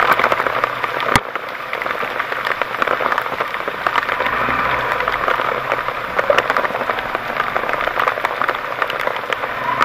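Rain pattering steadily with many small irregular ticks, and one sharp crack about a second in.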